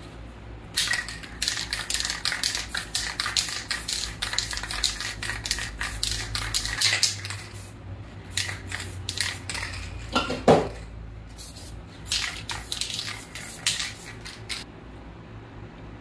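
Aerosol spray-paint can being shaken in three bouts, its mixing ball rattling rapidly against the metal. A brief falling squeak about ten seconds in.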